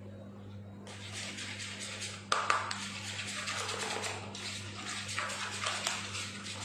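A spoon stirring and scraping around a small plastic bowl, mixing buttercream, a steady rasping swish with small clicks and one sharper knock against the bowl about two seconds in.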